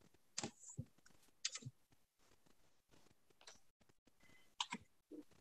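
Near silence broken by a few faint, brief clicks and rustles, with a small cluster near the end: handling noise as a stole is draped over shoulders and papers are held.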